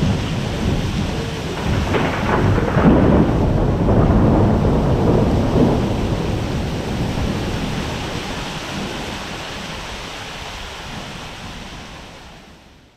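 Thunder rolling over steady rain as a mountain thunderstorm arrives, the rumble loudest a few seconds in, then dying away and fading out near the end.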